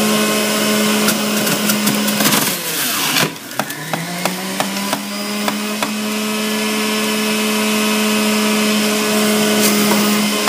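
Centrifugal juicer motor running with a steady whine. About two seconds in it slows under load as produce is pushed down the feed chute, with a grinding rush and several knocks, then spins back up to speed.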